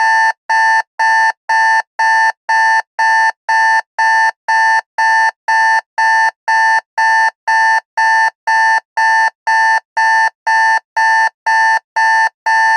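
Alarm clock beeping: identical short, high beeps about twice a second, steady and unchanging.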